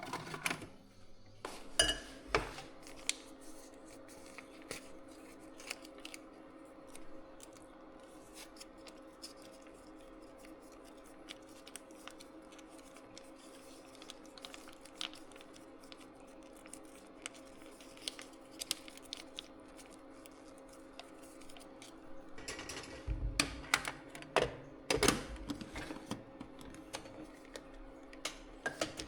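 Kitchen cooking sounds: dishes, pans and utensils clinking and clattering, with a busier patch of clatter near the end. A steady hum, like a running kitchen appliance, comes on about a second in and runs under it.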